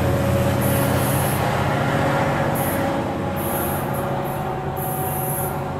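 Caltrain commuter train pulling away, its MP36 diesel locomotive's engine running with a steady drone and a thin whine above it, slowly fading as the train recedes.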